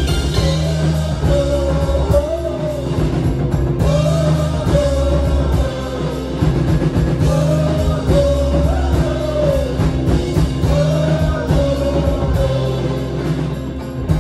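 Live country-rock band playing loudly, with banjo, pedal steel guitar, electric guitars and bass, and a drum kit, and a man singing over it in repeated phrases.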